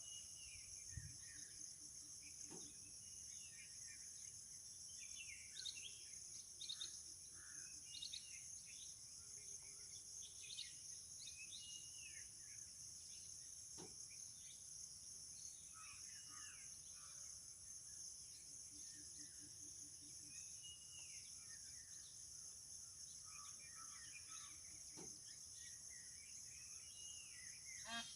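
Faint, steady, high-pitched insect chorus, like crickets or cicadas, with scattered faint bird chirps and a few soft clicks.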